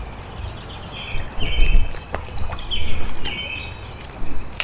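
Birds chirping in short repeated phrases about once a second over a steady outdoor background. A low rumble swells on the microphone twice around the middle, with a few sharp clicks.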